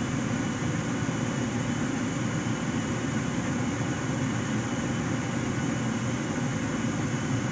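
Gas furnace circulating blower running steadily, a constant hum with air rushing through the ducts. It is running on after the burner has shut off, before it shuts itself down.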